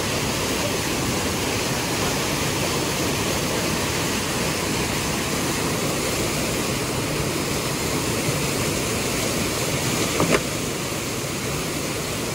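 Whitewater mountain stream rushing steadily over rocks in a fast cascade. A single short knock comes about ten seconds in.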